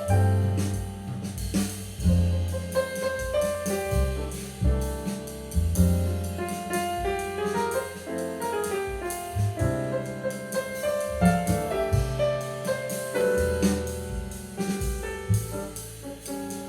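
Piano-led jazz with bass and drums, played back through a Bose 301 Series I loudspeaker for a sound test.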